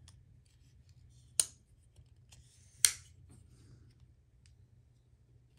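Chris Reeve Large Sebenza 31 titanium frame-lock folding knife giving two sharp clicks, about a second and a half apart, as the blade is locked up and then released. This is a check for lock stick, and the lock lets go cleanly with no lock stick.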